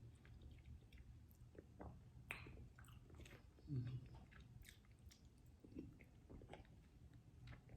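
Quiet close-up mouth sounds of a person chewing soft, wet food, with small scattered lip smacks and clicks and a short closed-mouth hum just before four seconds in.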